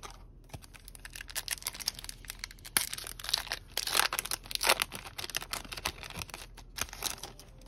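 Foil wrapper of a Yu-Gi-Oh! booster pack being crinkled and torn open by hand: a dense run of sharp crackles, loudest in the middle.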